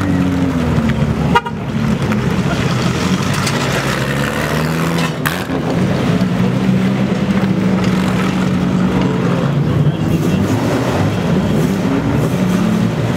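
Engines of lowered old-school Japanese cars running and revving as they drive off one after another, the exhaust note rising and falling in pitch. There is a sharp knock about a second and a half in.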